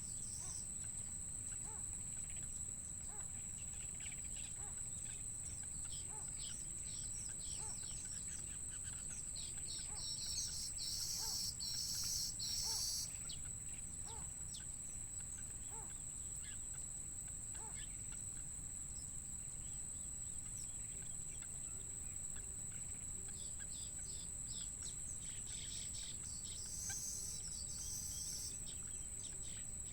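Outdoor ambience with a steady high-pitched whine and a low rumble, broken by bursts of high bird chirping about ten seconds in and again near the end.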